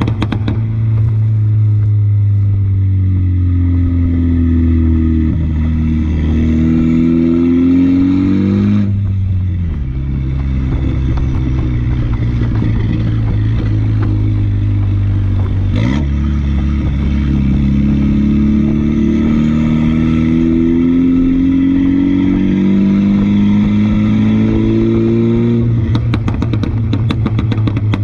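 2015 Mini Cooper S's turbocharged 2.0-litre four-cylinder engine through a catless straight-pipe exhaust, pulling steadily with the pitch slowly rising. There is a gear change about nine seconds in and another around sixteen seconds. Near the end it gives rapid crackling pops as the revs fall.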